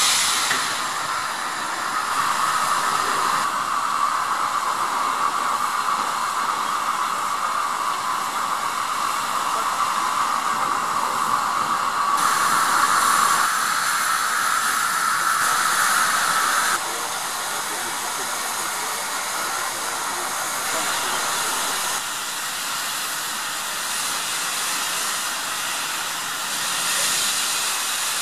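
Steam tank locomotives letting off steam: a loud, steady hiss that shifts abruptly in level and tone a few times.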